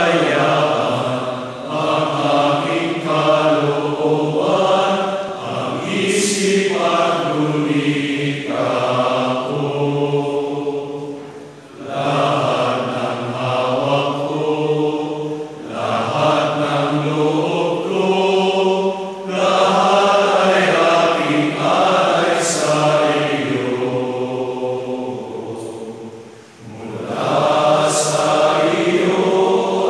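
A large group of priests singing together, in long sustained phrases broken by brief pauses.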